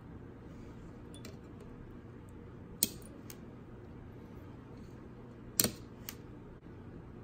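A few sharp clicks and taps of small tools and electronic parts handled on a workbench, the two loudest about three seconds apart, over a faint steady background hum.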